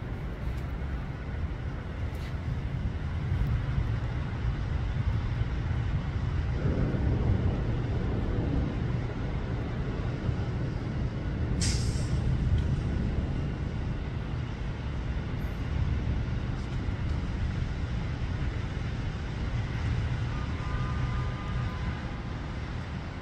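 Outdoor city-and-harbour ambience: a steady low rumble that swells and fades, with a short sharp hiss about halfway through.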